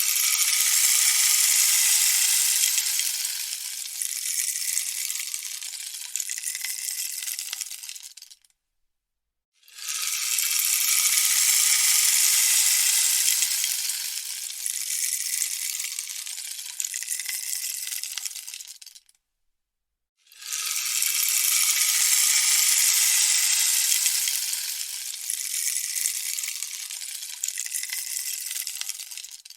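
A rainstick turned over three times. Each pass is a cascade of rattling trickle about nine seconds long that is loudest at first and then eases off. About a second of silence separates the passes.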